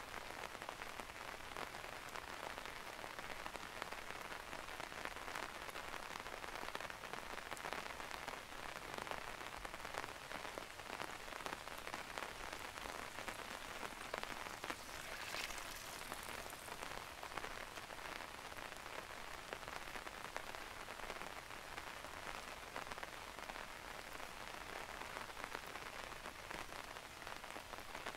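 Steady rain falling through a maple forest, an even hiss with many individual drops ticking close by.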